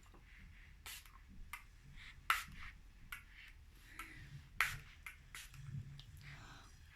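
A few short spritzes from a small spray bottle of rubbing alcohol, the two loudest about two seconds apart, among light clicks and taps of plastic being handled on a table.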